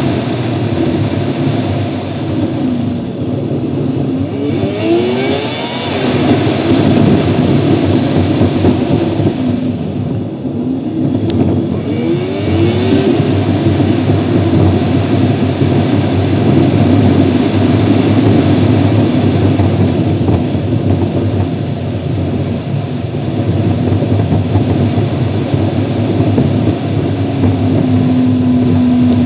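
Car driving on the road, heard from a camera on its front grille: steady, loud road and wind noise over the engine, with the engine note rising twice, about five and twelve seconds in, as the car accelerates.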